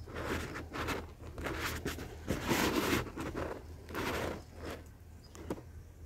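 Rustling and scraping of a dry grass nest and the leaves around it, in irregular bursts as the parent bird moves at the nest rim, loudest about two and a half seconds in and easing off near the end.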